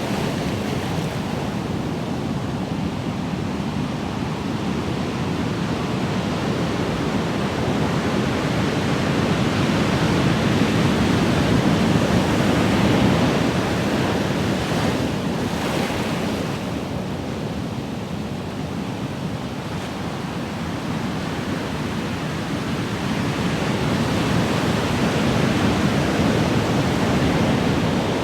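Ocean waves breaking and washing in a continuous surf, swelling and easing slowly, loudest about twelve seconds in and again near the end.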